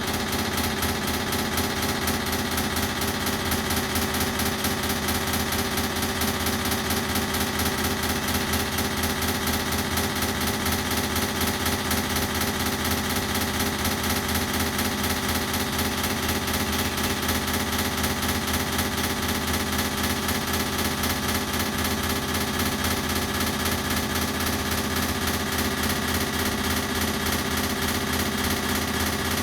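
Ceiling fan running steadily, a layered hum with a fast, even pulsing, thickened by added echo effects.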